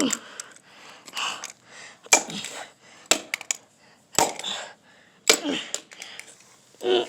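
Sharp knocks and cracks of a plastic toy being struck hard, about six hits roughly a second apart.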